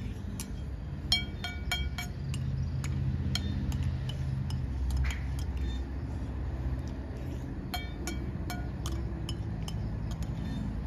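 Metal spoon clinking and scraping against a bowl while eating, in two clusters of sharp ringing clinks, about a second in and again near eight seconds, over a low steady rumble.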